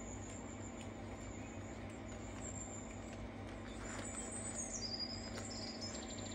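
LGB garden-scale model diesel locomotive hauling freight wagons on outdoor track: a steady low hum with even rolling noise. A bird chirps in a few high, stepping-down notes past the middle.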